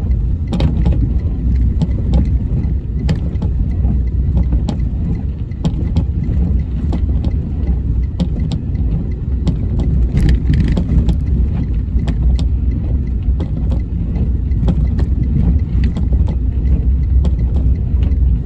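Steady low rumble of a vehicle running, with scattered clicks and knocks throughout.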